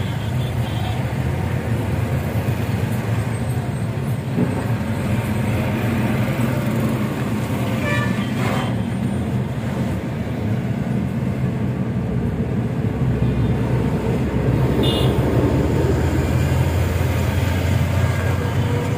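A motor vehicle's engine running steadily amid traffic noise, its low rumble growing somewhat louder in the last third.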